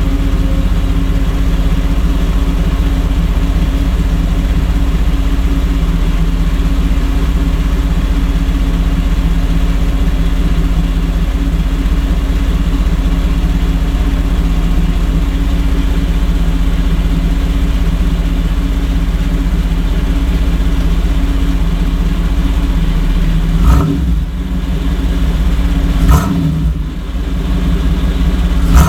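1992 Chevrolet Camaro RS running through a Flowmaster exhaust, idling steadily, then revved in three short throttle blips about two and a half seconds apart near the end.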